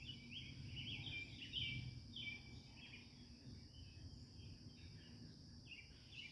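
Birds chirping: a quick series of short chirps, busiest in the first few seconds and thinning out later, over a steady high-pitched drone.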